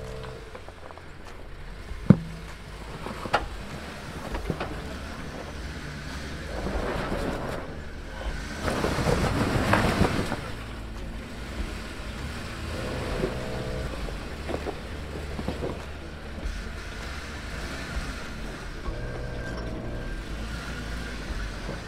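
Jeep Wrangler JKU working its way over a rock obstacle: a steady low engine rumble, two sharp knocks a couple of seconds in, and a louder surge of engine and rock noise around the middle.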